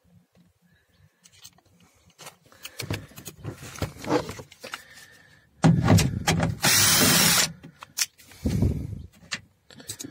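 Cordless drill-driver running for about two seconds, about six seconds in, backing out the screws that hold a car door speaker, with a shorter run about two seconds later. Before it, rustling and handling of the door panel.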